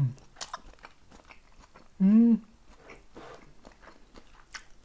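A person chewing a mouthful of chicken mayo-ponzu stir-fry, with faint crunching and clicking throughout. About two seconds in comes a short hummed "mm", rising and falling, the loudest sound.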